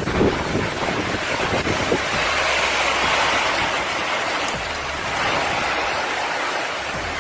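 Steady rushing noise of a hurricane storm, with wind buffeting the microphone in the first couple of seconds.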